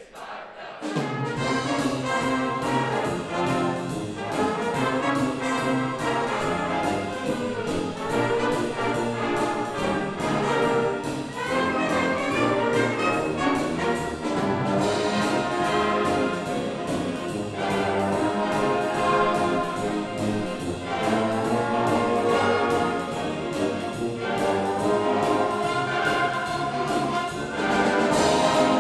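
Full concert band of brass, woodwinds and percussion playing loudly with a steady beat, the band coming in at full volume about a second in.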